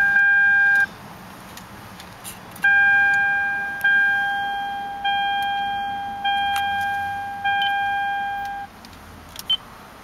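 Lexus IS-F's in-cabin electronic warning chime: a steady tone that cuts off about a second in, then after a short pause five chimes about a second apart, each fading away, stopping near the end.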